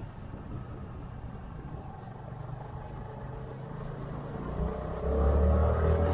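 Motor vehicle running with a steady rumble of engine and road noise. About four and a half seconds in, the engine gets louder and its pitch rises slightly as it accelerates.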